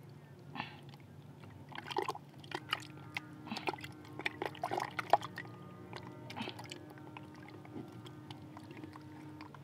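Wet mud squelching and sucking as a hand gropes inside a muddy burrow in a clay bank: irregular squishes and pops, busiest over the first six seconds, then thinning out.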